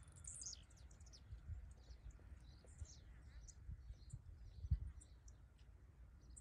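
Faint bird chirps: short, high calls that drop in pitch, repeating every half second or so over a low rumble. A single brief thump about three quarters of the way through is the loudest sound.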